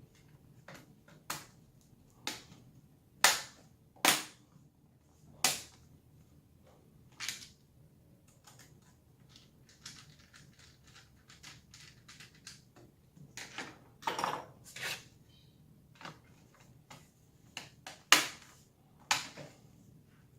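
Irregular sharp clicks and snaps from an HP ProBook 440 G5 laptop's case and parts being handled during repair, with a few loud ones among many faint ticks.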